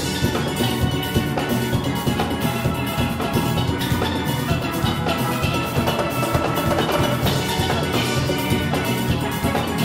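A steel orchestra playing: massed steelpans over a drum kit and engine-room percussion. The full band comes back in together with a sharp hit right at the start, then plays on at a steady, dense groove.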